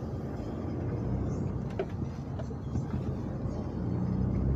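Lorry's diesel engine heard from inside the cab, a steady low drone at low speed, getting louder about four seconds in as it picks up.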